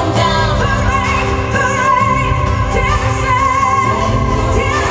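A woman singing a pop ballad live into a microphone over a band backing track with a steady low beat, holding long notes with a wavering vibrato.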